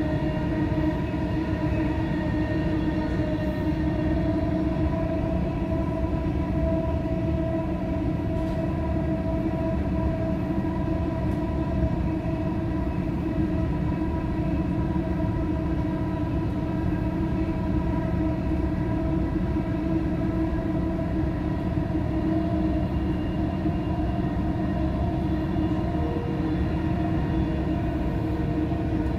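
Dubai Metro train running, heard from inside the carriage: a steady rumble of wheels on the track with a steady electric whine above it.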